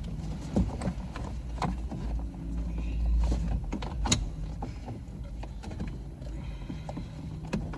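Plastic steering column cover being pried and worked loose: scattered clicks and knocks of plastic, the sharpest about four seconds in.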